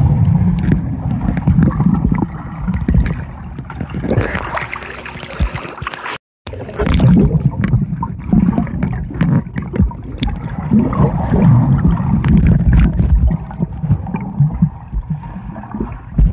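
Muffled underwater sound in a swimming pool, recorded with the phone submerged: churning water and rushing bubbles around a swimmer. The sound cuts out for a moment about six seconds in.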